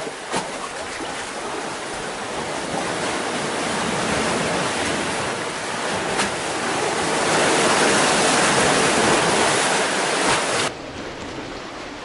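Black Sea surf washing in against a stone pier wall and the rocks and pilings beneath it: a steady rushing that swells to its loudest in the latter half, then drops off suddenly near the end.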